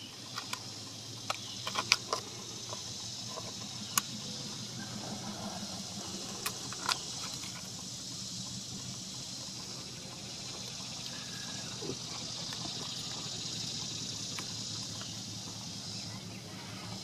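Scattered sharp clicks and taps from a truck's front turn signal bulb socket being worked for a better contact, over a steady high insect drone and a low steady hum.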